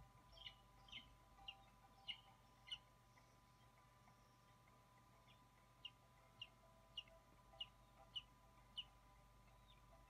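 Bird of prey calling at the nest: faint, short, sharp call notes that fall in pitch, about two a second, in two runs, one in the first three seconds and another from about six to nine seconds in. A faint steady electrical hum runs underneath.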